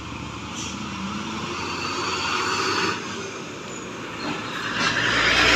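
Red Hino cargo truck's diesel engine running as it comes past close by, with other traffic behind it. The sound builds to a loud hiss near the end as the truck draws level.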